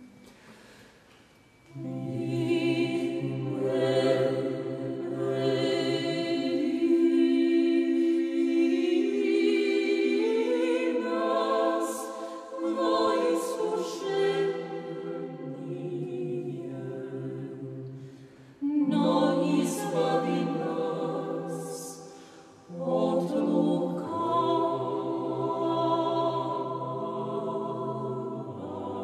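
A cappella choir singing Orthodox church chant, with melody voices over a low held note. The singing begins about two seconds in and breaks off briefly twice before carrying on.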